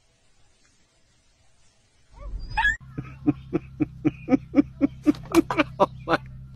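A dog barking in a quick run of short, high yaps, about three a second, starting a little under three seconds in after a near-silent opening, over a steady low hum.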